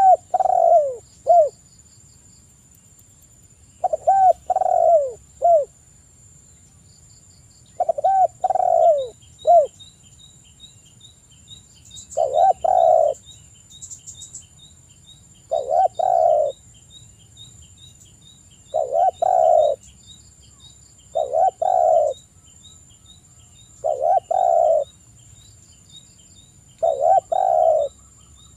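Spotted dove (tekukur) cooing: a short phrase of two to four coos about every three seconds, nine phrases in all, the first few with sliding, falling notes. A faint, regular high ticking runs behind it from about nine seconds in.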